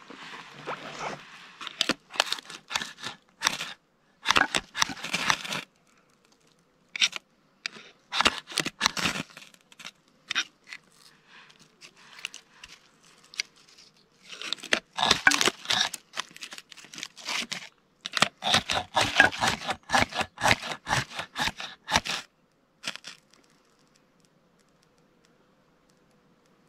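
Dry tinder and kindling being scraped and crumpled by hand while a campfire is being lit: bursts of rough scratching and rustling in several bouts, stopping a few seconds before the end.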